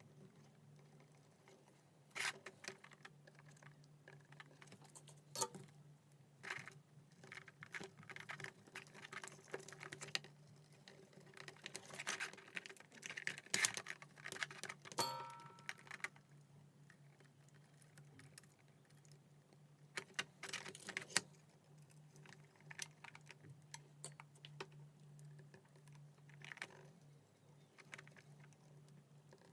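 Small clicks, taps and light rattles of tools and wires being handled while wires are soldered to a potentiometer's pins, over a steady faint low hum. A brief squeak about halfway through.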